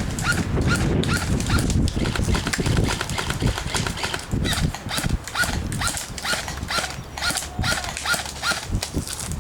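Footsteps over rough ground, about two to three steps a second, over a steady low rumble.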